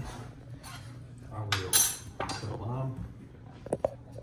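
Chef's knife knocking and clicking on a wooden cutting board as a lime is cut, with two sharp clicks near the end.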